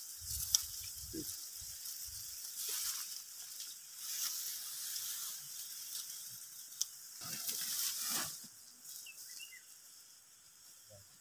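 Dry hill rice stalks and leaves rustling in swells as the ripe panicles are cut and gathered by hand, with a couple of sharp clicks from the cutting. The rustling dies down near the end.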